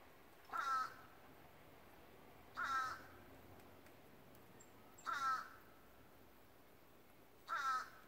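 A bird calling: four short calls, evenly spaced about two and a half seconds apart, each standing well above the quiet background.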